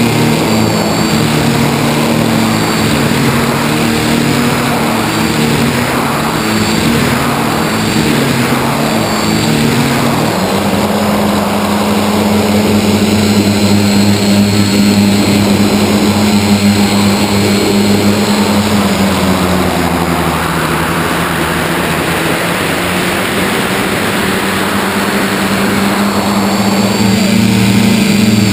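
Electric motors and propellers of an FPV model aircraft, heard through its onboard camera: a steady buzzing drone that shifts in pitch about a third of the way in and again past the middle. A rushing air noise swells in the later part.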